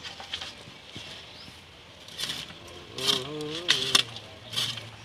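Building work in a sand trench: a few short scrapes and knocks as hollow concrete blocks are set in place and a shovel works the sand, with a brief voice in the middle.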